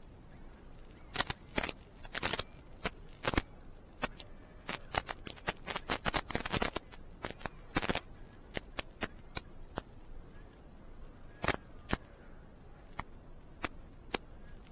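Irregular sharp clicks and taps, coming thickest in a quick run through the middle, over a low steady background noise.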